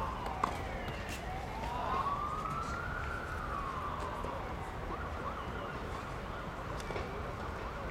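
Emergency-vehicle siren wailing: the pitch falls, climbs slowly for about two seconds, then falls again, and the wail fades out about halfway through.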